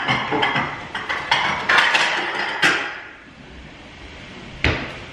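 Utensils clattering in a kitchen drawer as it is rummaged through for the first few seconds. The drawer is then pushed shut with a single sharp knock near the end.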